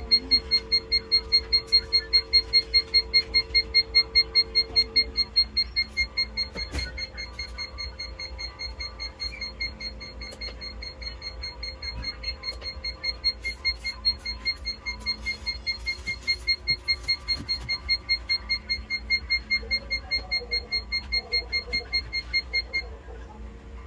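Digital egg incubator's controller beeping rapidly and evenly, about four high beeps a second, stopping near the end. A single knock comes about seven seconds in.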